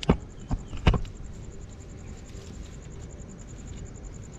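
A few light knocks in the first second as a stone is handled and tied into a thick cotton rope on stone slabs, then a steady faint high insect trill in the background.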